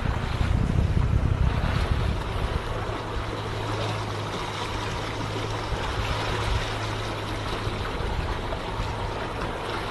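A boat's motor running with a steady low hum, mixed with water rushing and wind buffeting the microphone. The wind gusts are strongest in the first two or three seconds.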